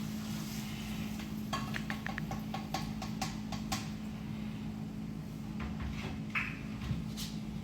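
Metal cookware and utensils clinking, a run of quick taps at about four a second, as cooked ground beef is strained of its grease. A steady low hum runs underneath.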